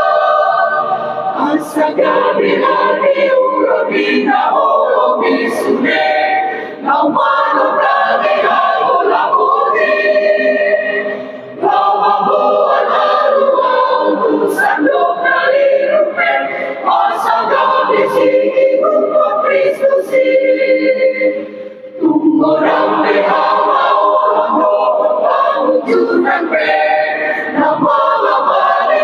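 A mixed choir of men and women singing in parts, with brief breaks between phrases about 7, 11 and 22 seconds in.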